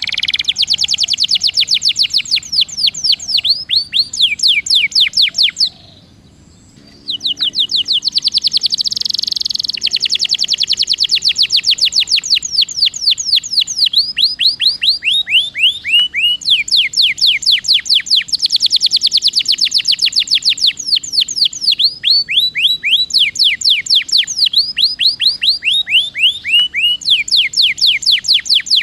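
Domestic canary singing long rolls: rapid runs of high, falling whistled notes repeated many times a second, with a brief pause about six seconds in.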